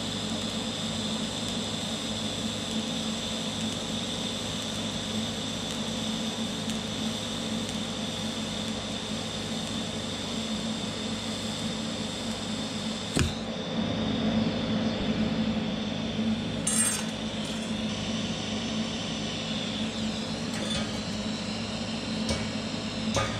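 TIG welding arc from a Vulcan OmniPro 220 welder, a steady hiss with a faint whine, running until about halfway through and then stopping with a click. A few light metal clinks follow.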